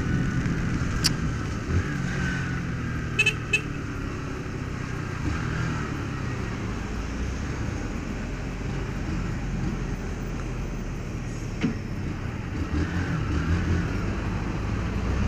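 Honda Fan 150's single-cylinder four-stroke engine running at low speed, with tyre hiss on wet asphalt and the idling of heavy trucks close alongside. Two short horn toots come about three seconds in.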